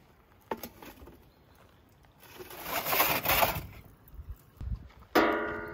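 A metal serving tray being handled and slid onto a clay oven's floor: a short knock, a second or so of scraping, then one sharp clang about five seconds in, ringing with a metallic tone that fades slowly.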